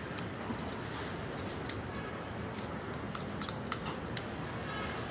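Small, irregular plastic clicks from a 12-sided fidget toy being fiddled with, with a sharper click about four seconds in and another at the very end.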